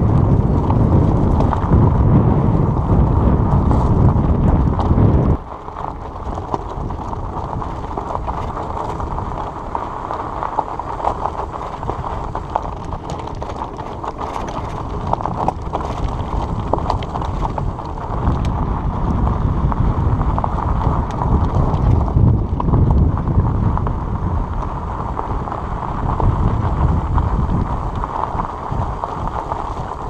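Fat-tyre tandem bicycle rolling over a rough gravel trail: tyres crunching on stones and the bike rattling, under wind noise on the microphone. A heavy low rumble drops off suddenly about five seconds in.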